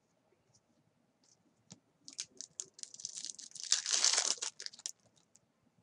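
A foil trading-card pack wrapper torn open and crinkled by hand: a few faint ticks first, then crackling from about two seconds in that is loudest just past the middle and dies away near the end.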